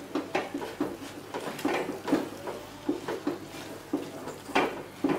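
Wire whisk scraping and clinking against a stainless-steel saucepan as flour is stirred into melted margarine and water for choux dough, which is starting to turn thick and heavy. Irregular strokes, a couple a second, the loudest near the end.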